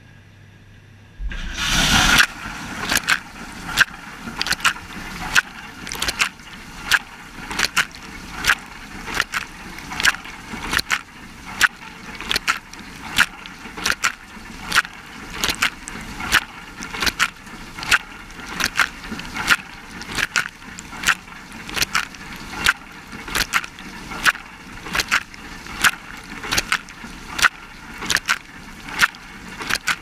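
Dishwasher wash cycle starting about a second in: water jets from the rotating spray arm hit the camera over a steady hiss of spray, with a sharp splash each time the arm sweeps past, about three every two seconds. Before it starts there is only a faint low hum.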